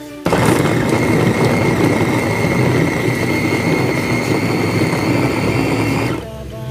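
Electric food chopper's motor running at full speed, its blades chopping raw pork chunks in the bowl, with a steady high whine over the rattle of the meat. It starts suddenly just after the beginning and cuts off near the end.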